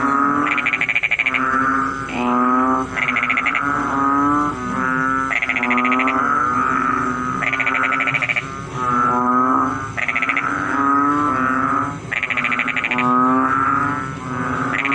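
Several frogs calling at once: loud, repeated croaking calls with a fast pulsing quality, overlapping one another and coming about every second.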